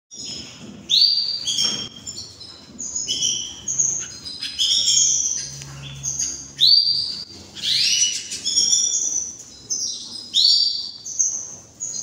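Canary singing: a string of chirps and rising whistled notes, repeated over and over.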